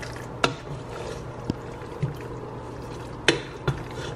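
Wooden spoon stirring penne in a thick butternut squash sauce in a metal pot: wet stirring with a few sharp knocks of the spoon against the pot, over a steady low hum.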